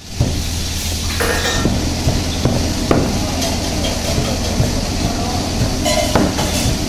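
Kitchen noise while shredded parotta is gathered by hand: a steady hiss over a low hum, with scattered clinks and knocks, a few of them sharper about one, two and a half, three and six seconds in.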